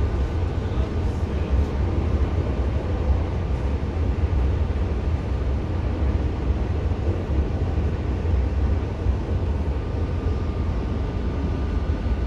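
Steady low rumble of a moving passenger train heard from inside the carriage, with faint steady high tones near the end.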